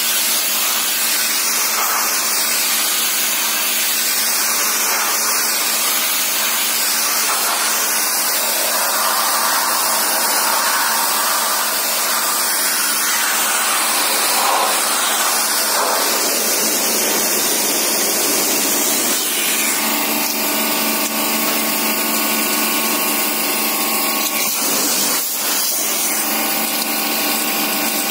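Electric pressure washer running, its pump humming steadily while the jet hisses through the aluminium fins of a tractor radiator being cleaned. About two-thirds of the way through, the hum's steady tones come through more clearly.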